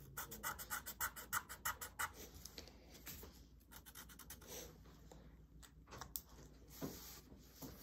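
Felt-tip marker scribbling on paper in quick back-and-forth colouring strokes, several a second for the first two or three seconds, then fainter and more scattered.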